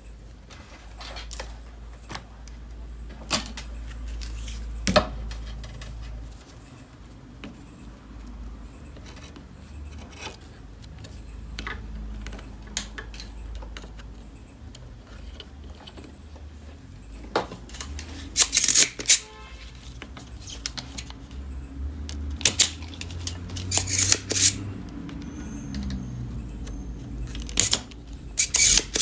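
Small hand tools clicking and tapping on an inverter's circuit board while its H-bridge section is removed, with irregular sharp clicks and a few short, harsh noisy bursts in the second half, over a low hum.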